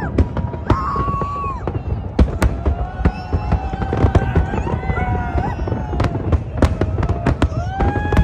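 Fireworks going off in rapid succession: many sharp bangs and crackles over a steady low rumble, with several held tones, each about a second long, sounding over them.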